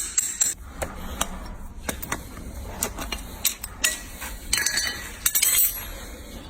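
Farrier's hand tools working on a horse's hoof: a run of sharp clicks and knocks, with a couple of longer scraping strokes near the end.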